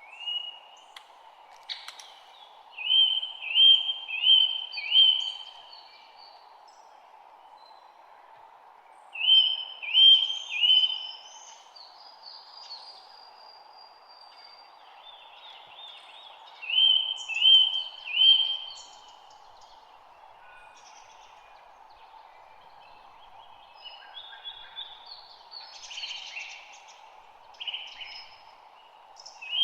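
Songbirds singing: one bird repeats a short phrase of three or four loud, even notes every six or seven seconds, while other birds add higher chirps and trills, more of them near the end. A steady low hiss of background noise runs underneath.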